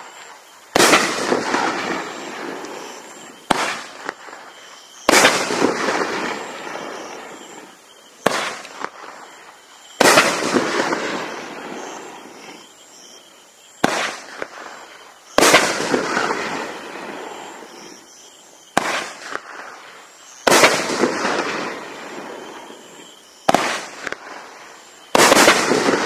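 Consumer firework cake with 1.4-inch tubes firing single shots about five seconds apart, six breaks in all. Each shot is a sharp launch thump followed about a second and a half later by a loud aerial break and a noisy tail that fades over a few seconds.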